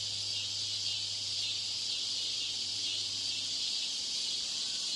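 Steady high-pitched hiss of background noise added to a test recording to imitate a poor exam-room broadcast. Under it is a low electrical hum that stops about three and a half seconds in.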